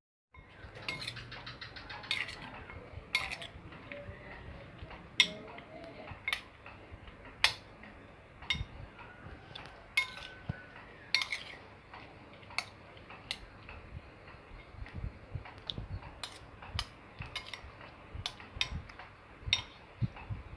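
Kitchen utensil clinking and knocking against a bowl or dish in short, sharp, irregular strikes, roughly one a second, as the broccoli batter is handled.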